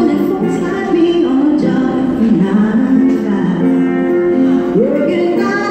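A woman singing a slow melody into a microphone, holding long, wavering notes and gliding between them, accompanying herself on acoustic guitar.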